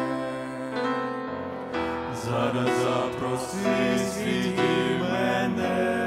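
Church vocal group singing a gospel song in harmony over instrumental accompaniment. The accompaniment plays alone at first, and the voices come in about two seconds in.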